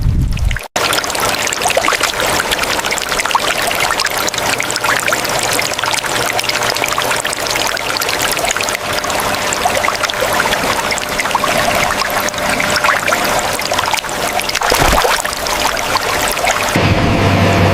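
Water pouring and trickling steadily. Near the end a low, steady machine hum starts.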